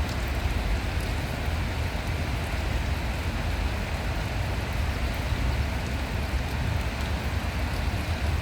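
Steady outdoor rushing noise with a heavy low rumble, unbroken throughout.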